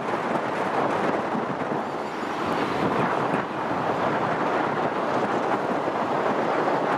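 Strong wind buffeting the microphone, a steady rushing noise that rises and falls.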